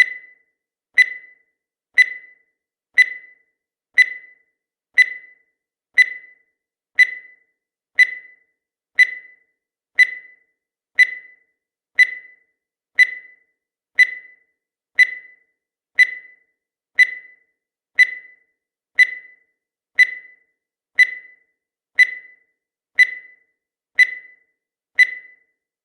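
Countdown timer sound effect: a short, high-pitched electronic tick-beep once every second, each one cut off quickly, keeping steady time with the seconds counting down.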